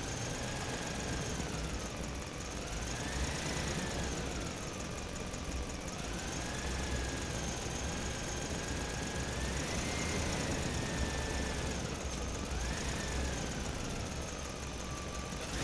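Fiat 480 tractor's diesel engine running steadily, driving the boom sprayer through the PTO shaft, with a thin whine over it that slowly rises and falls in pitch.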